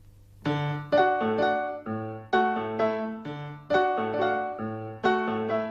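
Piano or keyboard playing a bouncy melody of short struck notes, starting about half a second in: a theme-song intro.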